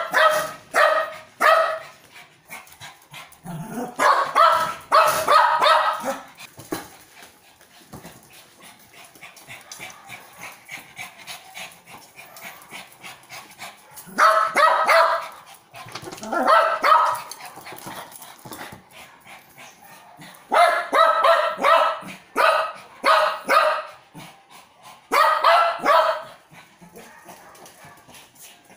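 Small dog barking excitedly in several bursts of rapid, high yapping barks, with quieter stretches between.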